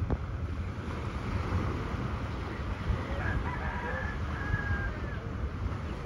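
Wind buffeting the microphone over the wash of surf, with a rooster crowing faintly in the middle.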